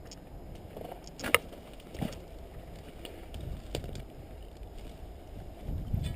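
Rustling from a player moving about on foot, with a few scattered sharp clicks or snaps. The loudest comes about a second and a half in.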